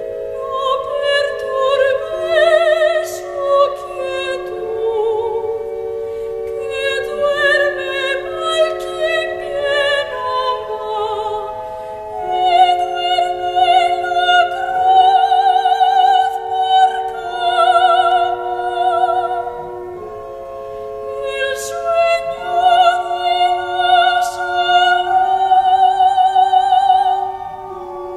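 Choir of upper voices singing a slow part-song with no spoken words: several lines hold long chords with vibrato, with soft hissing consonants between phrases. The singing swells louder in two long phrases, one in the middle and one near the end, with a brief softer moment between them.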